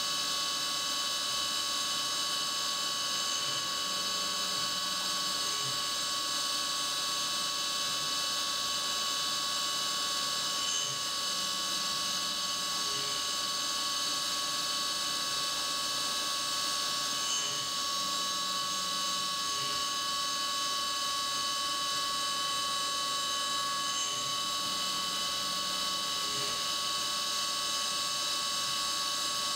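CNC mill spindle running a 1/8-inch ball end mill through light 3D profiling passes under flood coolant. It gives a steady whine of several fixed high tones over the hiss of the coolant spray, with a faint low tone coming and going every few seconds.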